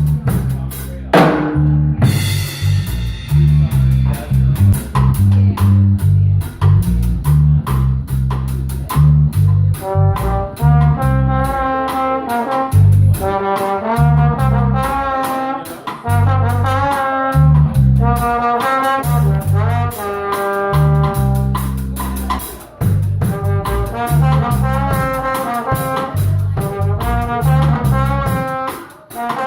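An instrumental band playing live: a drum kit keeps a steady beat with a heavy bass line, and short melodic phrases on brass instruments come in about ten seconds in and repeat.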